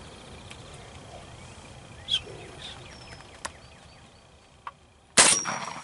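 A single .410 shotgun shot about five seconds in, sudden and loud with a short fading tail: the shot that drops a strutting wild turkey gobbler.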